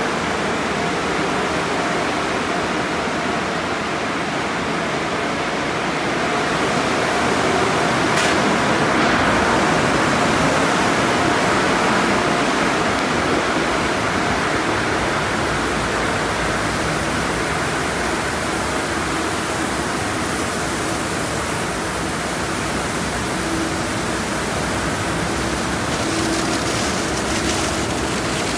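Conveyor car wash tunnel running: a steady rush of water spray and spinning cloth wash brushes scrubbing a foam-covered car. A faint machine hum joins near the end.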